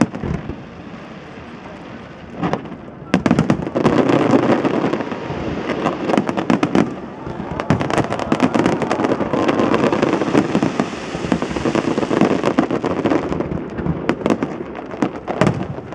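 Fireworks display with aerial shells bursting. A few separate bangs come first; from about three seconds in, a dense, rapid barrage of bangs and crackles follows, which thins out to scattered bangs near the end.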